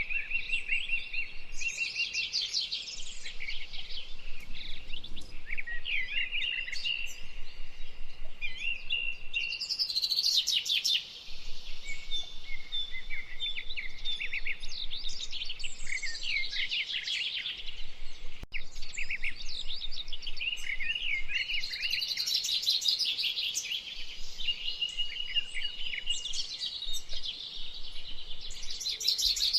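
A dense chorus of many birds calling at once: quick repeated high chirps and trills, with some held whistled notes, running on without pause.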